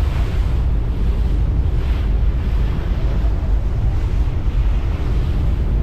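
Steady wind buffeting the microphone in a heavy low rumble, over the rush of open water, aboard a moving ferry.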